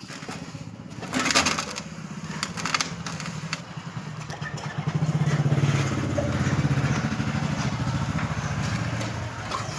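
An engine running, getting louder about halfway through, with two loud scraping, crunching noises in the first three seconds.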